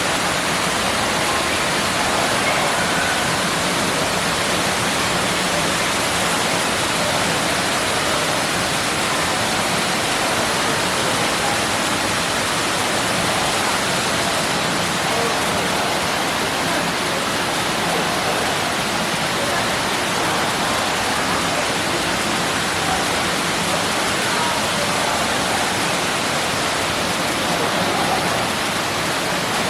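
Indoor artificial waterfall splashing steadily into a pool: an even, unbroken rush of falling water.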